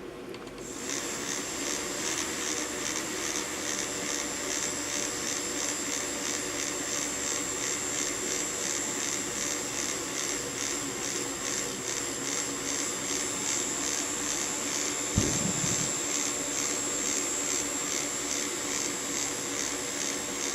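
Small electric motor of a fischertechnik monorail carriage running steadily under power, a continuous whir with a high whine. A brief low thump about fifteen seconds in.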